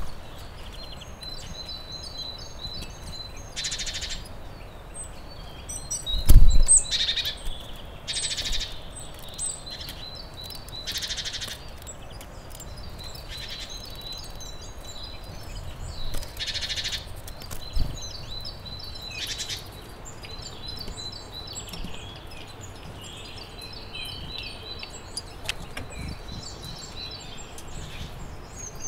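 Wild birds singing and chirping, with a loud thump about six seconds in and a lighter knock later.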